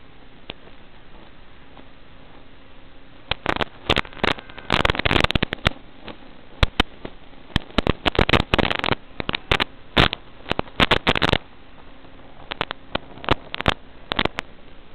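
Analog FPV video-receiver audio: steady static hiss, broken by dense bursts of crackling and popping from about three seconds in until about eleven seconds, then scattered pops near the end. The crackle comes as the radio link breaks up among the trees.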